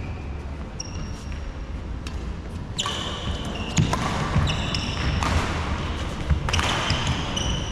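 Badminton rally on a wooden sports-hall floor, starting about three seconds in: sneakers squeak and scuff as the players move, with sharp racket hits on the shuttlecock.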